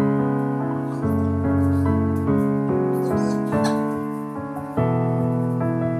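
Background music: slow chords, a new one struck about every second and fading before the next.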